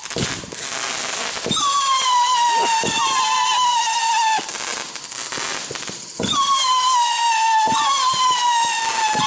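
Shogun 'Howler Monkey' 500-gram fireworks cake firing whistle shots: shrill whistles that each slide slightly down in pitch and overlap one another, punctuated by sharp launch and burst reports. Twice the whistling drops out for a second or two, leaving a noisy hiss.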